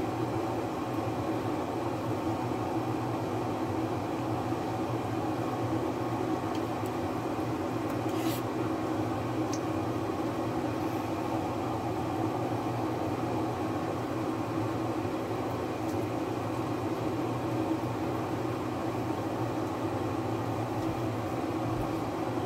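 Steady mechanical hum of a running motor, holding several constant tones, with one faint click about eight seconds in.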